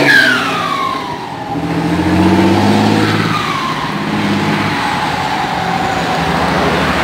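Mercedes-Benz 1618 dump truck's turbo-diesel engine pulling away and revving through the gears. A 'pente' whistle fitted in the turbo gives a falling whistle three times: a strong one at the start, one about three seconds in, and a long one near the end.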